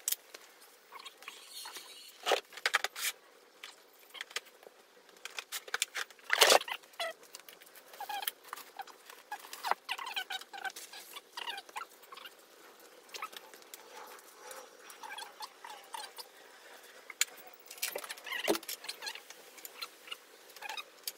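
Footsteps and handling noises on a concrete garage floor: scattered taps and clicks with short squeaks, and a few louder knocks, the loudest about six and a half seconds in.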